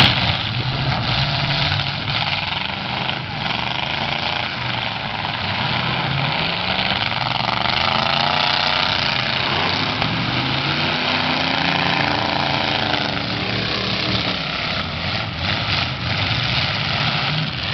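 Several demolition derby cars' engines running and revving at once in the arena, their pitches rising and falling as they drive, with a few knocks of cars ramming each other near the end.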